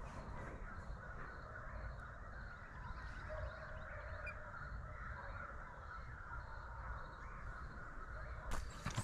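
Distant animal calls, with faint high chirping from insects at about two a second. Near the end, footsteps in dry field stubble start with a sudden rustle.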